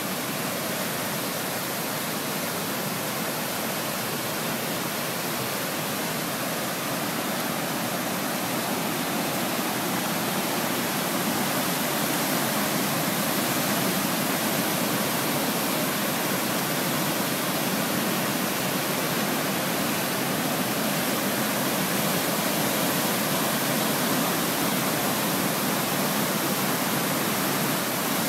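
Athabasca Falls: the Athabasca River pouring over the falls and churning through the narrow rock gorge below, a loud steady roar of white water that grows a little louder about ten seconds in.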